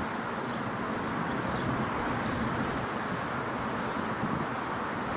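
Steady rushing vehicle noise, with a few faint high chirps.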